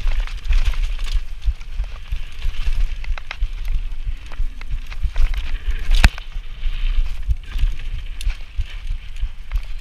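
Mountain bike descending a dirt trail at speed: tyres crunching over dirt and roots and the bike rattling over the bumps, over a steady low rumble. One sharp, hard knock stands out about six seconds in.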